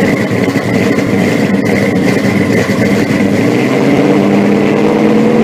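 A car engine running steadily and loud.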